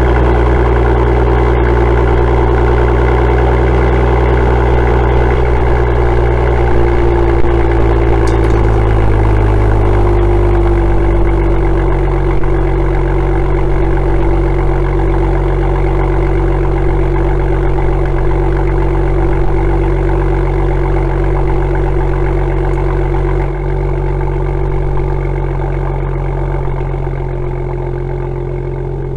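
BMW M2's N55 turbocharged inline-six idling through its M Performance exhaust. The raised idle drops to a lower, steady note about ten seconds in, as the engine settles after a cold start. The tips no longer vibrate or rattle, now that aluminium tape packs them snug on the pipes.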